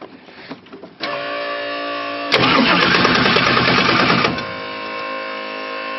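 Factory Five GTM supercar's engine running steadily, with a louder, rougher stretch for about two seconds in the middle.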